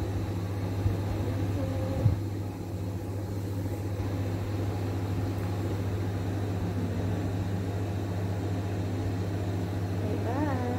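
A steady low hum, with two short knocks about one and two seconds in and a brief pitched sound near the end.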